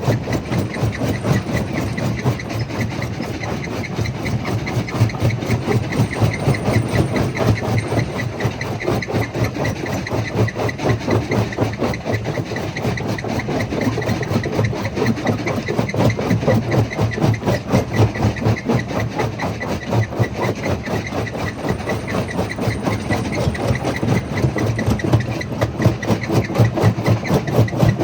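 Jaw crusher running, a steady low rumble with a rapid, even pulsing as it crushes stone.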